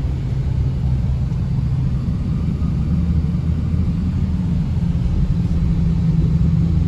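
A car driving at low town speed, heard from inside the cabin: a steady low drone of engine and road noise.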